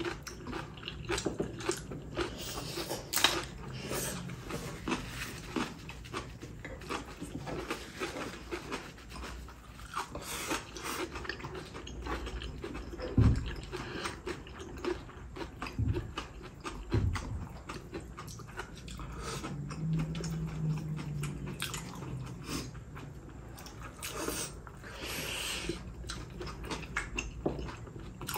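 Two people chewing and biting food at close range, green chili pepper kimchi and braised beef ribs, with irregular small clicks of chopsticks against bowls and plates.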